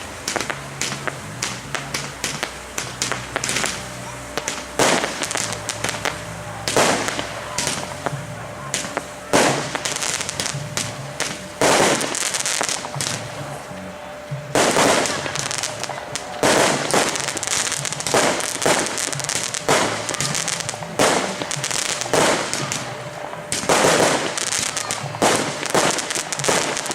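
Aerial fireworks display: a rapid, irregular series of sharp bangs and crackling bursts, several often close together in quick runs.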